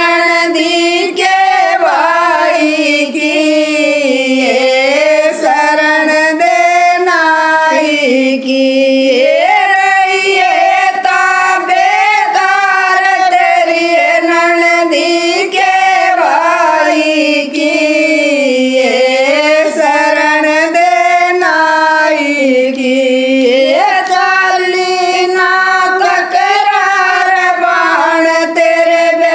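Women's voices singing a Haryanvi folk devotional song (jakdi) together in unison, without instruments, with hand claps keeping time.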